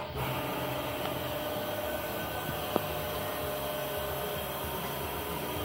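Steady electric hum of a Millport knee mill running, with its spindle motor and drive turning. There is a single sharp click a little before the middle.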